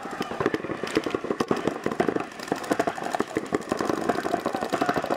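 Paintball markers firing in rapid strings, a dense run of sharp pops several times a second.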